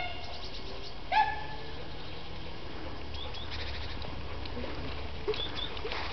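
A ten-week-old puppy gives a short high yelp about a second in, falling in pitch, after the tail of another at the very start. Faint rapid chirping runs behind it.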